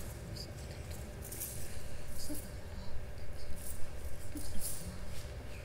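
Hall room tone during a pause on stage: a low steady hum with a few faint rustles of movement.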